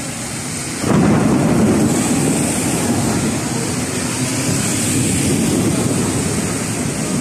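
Thunder breaking suddenly about a second in and rumbling on, over the steady hiss of heavy rain.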